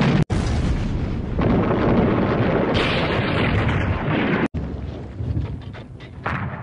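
Battle sound of artillery explosions, a dense continuous rumbling that cuts out for an instant twice, with a few sharp cracks in the last couple of seconds.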